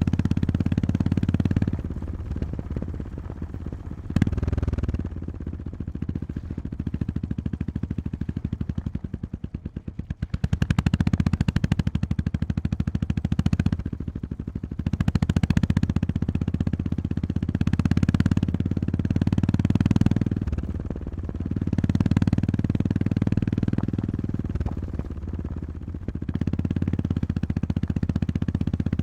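A Honda GB350S's single-cylinder engine running as the bike is ridden, its low drone swelling and easing as the throttle is opened and closed. Near the middle it drops right off, then picks up again. There is one sharp click about four seconds in.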